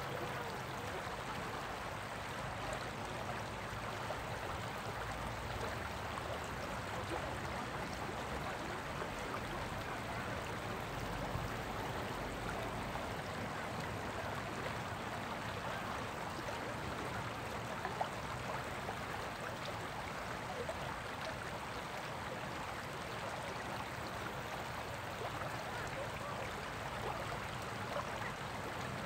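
Shallow rocky stream rippling over stones in a riffle: a steady, even sound of flowing water.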